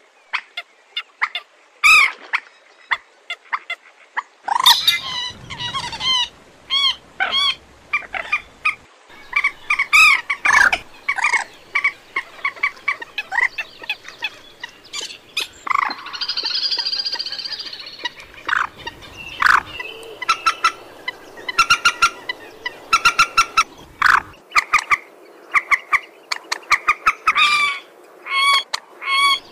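Moorhen calling: many short, sharp clucking notes in irregular runs, with one longer continuous call about sixteen seconds in.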